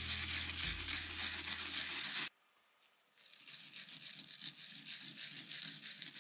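Raw onion being grated by hand on a ceramic grater dish, a steady rasping scrape. It breaks off for under a second a little over two seconds in, then resumes.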